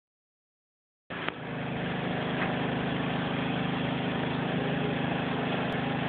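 Pull-down kitchen faucet sprayer running water into a stainless steel sink: a steady rush with a low hum under it, starting with a click about a second in.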